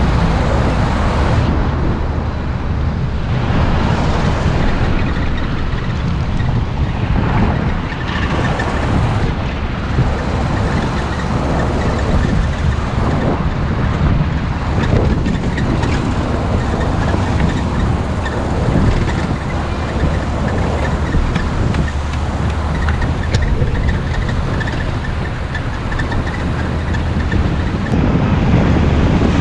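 Steady engine and road rumble of a moving vehicle in city traffic.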